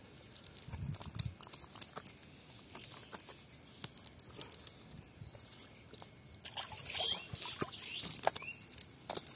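Irregular wet taps, slaps and clicks from fish flapping in a cast net on wet mud among small shells, growing busier in the last few seconds.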